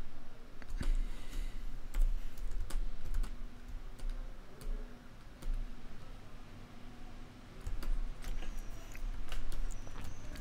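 Irregular clicks and taps of a computer keyboard and mouse, over a faint low rumble.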